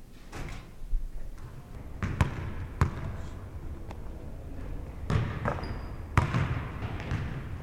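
A ball bouncing on a hard floor: several sharp thuds at uneven intervals.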